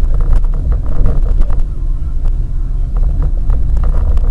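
A car on the move: a steady low rumble of engine and road noise, with frequent small knocks and rattles.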